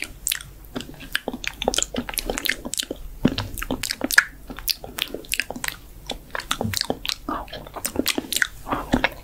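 ASMR mouth sounds close to the microphone: quick, irregular wet clicks and smacks of lips and tongue, imitating biting and chewing.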